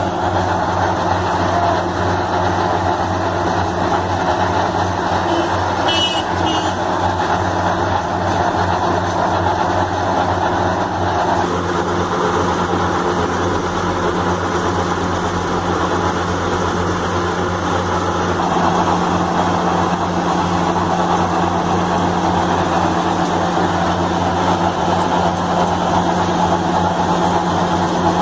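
Heavy diesel construction machinery running steadily under load, a low engine drone with mechanical noise over it. The sound changes abruptly about a third of the way in and again about two thirds in, as the shot changes.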